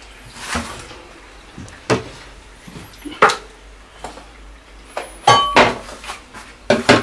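Kitchen cupboard and glass jars being handled: scattered knocks and clicks, then a short ringing clink of glass a little over five seconds in.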